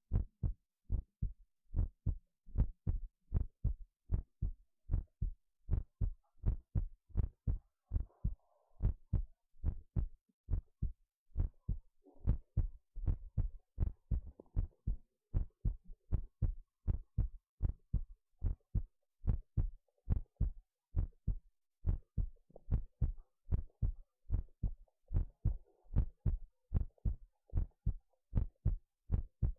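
Human heartbeat picked up by a phonocardiograph's chest microphone: a steady rhythm of short, deep lub-dub thumps in pairs.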